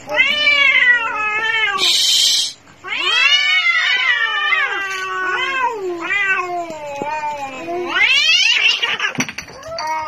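Cats caterwauling, as in a fight: long, wavering yowls that rise and fall in pitch, broken by a short hiss about two seconds in, with a sharply rising yowl near the end.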